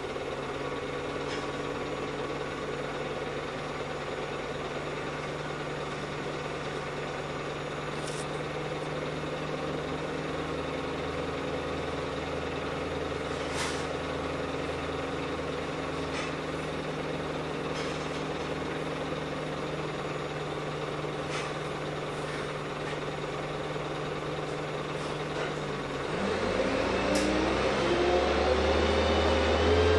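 Heuliez GX317 LPG-fuelled city bus engine idling steadily, heard from inside the passenger cabin, with a few faint clicks. About 26 seconds in, it grows louder and the engine note rises as the bus pulls away and accelerates.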